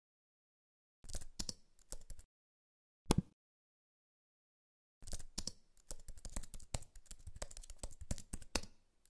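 Computer keyboard typing. There is a short run of key presses about a second in and a single click about three seconds in, then rapid, steady typing from about five seconds in as an email address is entered into a sign-up form.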